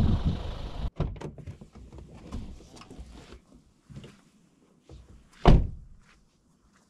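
Steady wind noise cuts off about a second in, followed by a few scattered clicks and knocks and one loud thud about five and a half seconds in.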